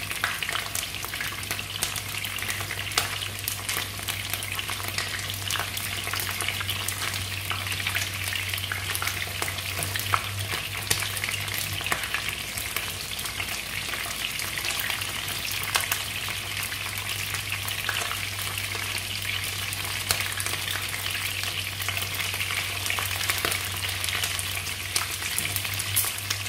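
Chopped red snapper head pieces shallow-frying in hot oil in a wok, nearly browned: a steady sizzle with frequent small crackling pops, over a low steady hum.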